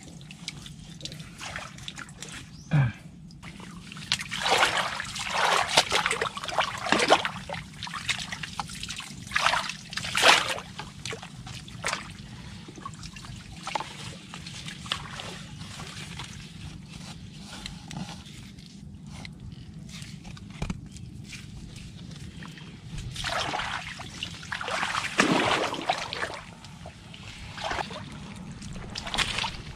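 Shallow water splashing and sloshing in several irregular bursts as bamboo crab traps are pushed down into the water and mud and set.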